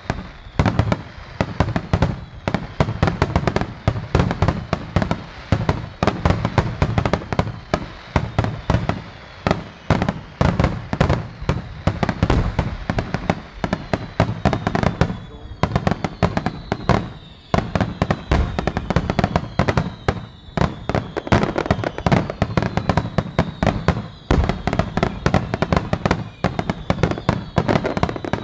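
Star mine fireworks finale: a continuous barrage of aerial shells bursting several times a second with deep booms. High whistling tones glide downward through the second half.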